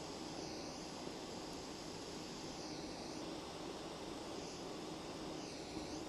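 Small jeweller's soldering torch flame hissing steadily while heating a solder joint on gold jewellery, its tone shifting slowly three times.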